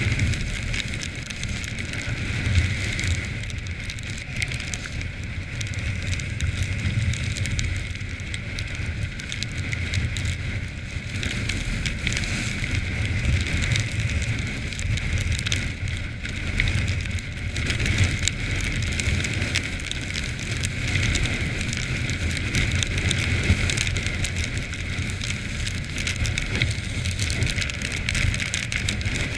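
Quad bike (ATV) riding over snowy moorland: a low engine rumble under a steady crackling rush of wind and ride noise on the microphone.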